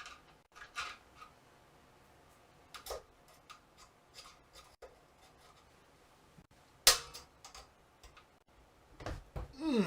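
Scattered light clicks and taps of small computer parts being handled and worked loose, with one sharp click about seven seconds in.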